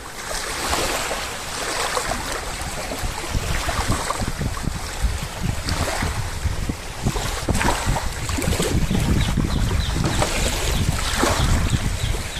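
Floodwater rushing over a road, a steady turbulent roar with wind buffeting the microphone.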